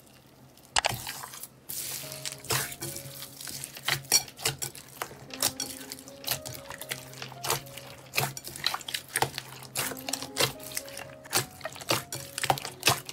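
Slime squished and kneaded by hand in a glass bowl, giving a rapid run of wet pops, clicks and squelches that thickens after the first couple of seconds. Soft background music plays underneath.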